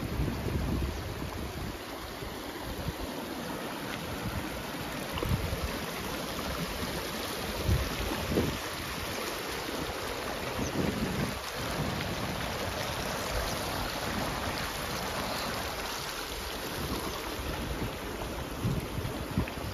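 Shallow mountain stream rushing over stones, with rain falling and gusts of wind bumping against the microphone now and then.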